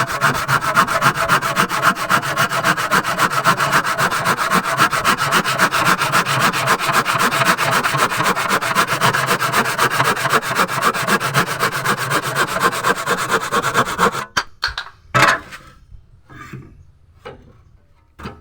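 Hand crosscut saw cutting through wood in quick, steady strokes. The saw has just been sharpened with a file. The sawing stops about fourteen seconds in, followed by a few separate knocks of wood.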